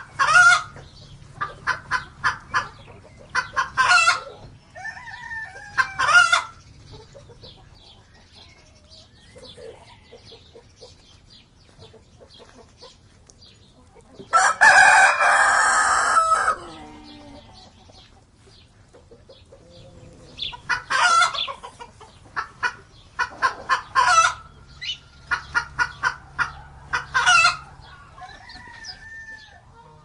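Domestic chickens clucking in rapid runs that build to loud squawks, over and over. Midway a rooster crows once, a loud call of about two seconds.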